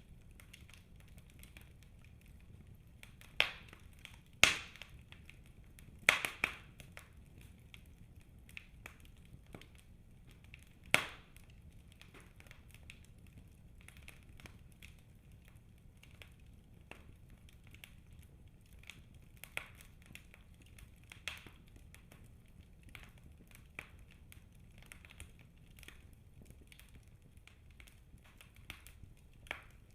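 Wood fire burning in a fireplace: a soft low rumble with steady faint crackling and a few sharp, louder pops of the logs, several in the first dozen seconds.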